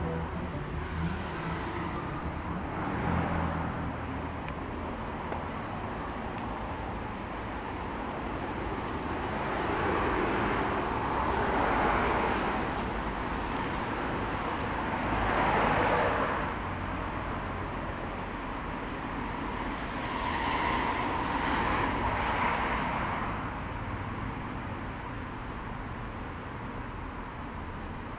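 Road traffic: cars passing one after another, each swelling and fading away, over a steady low rumble of traffic. About three louder passes come in the middle of the stretch.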